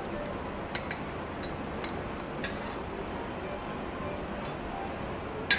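Metal teppanyaki spatulas clinking and scraping on a steel griddle as fried rice is scooped and dropped: a few scattered sharp clinks over the first half, and a louder clink just before the end, over a steady background hiss.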